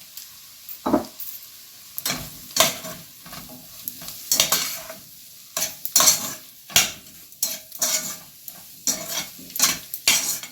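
Mushrooms, onions and garlic stirred in oil in a frying pan. The utensil scrapes and knocks against the pan in irregular strokes, about one or two a second from about two seconds in, over a faint sizzle.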